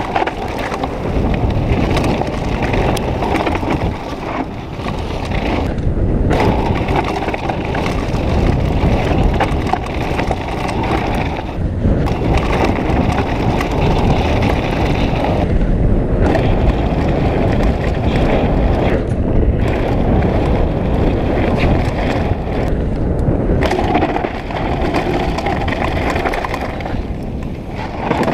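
Downhill mountain bike descending a loose dirt and gravel trail: continuous tyre rumble over stones and ruts with frequent knocks and rattles from the bike.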